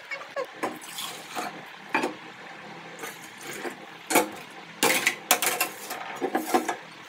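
Stainless steel bowls and a steel tumbler clinking and clattering as they are picked up and stacked, in a string of separate knocks, loudest about four to five seconds in.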